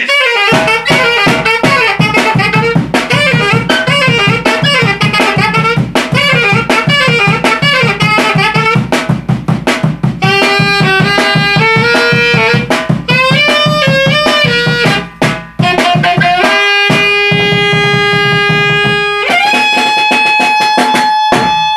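Alto saxophone and drums playing live: quick drum strokes under a running saxophone melody, then long held saxophone notes over the drums about two-thirds of the way through, and a final long held note that ends the tune near the end.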